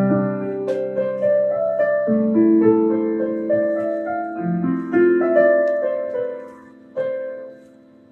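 Piano played slowly: a simple melody of held notes over sustained chords. The playing thins out near the end, with a last note struck about seven seconds in that rings away.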